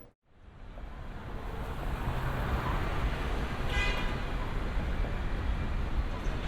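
Road traffic rumbling steadily, fading in after a brief break, with a short high-pitched tone like a horn toot about four seconds in.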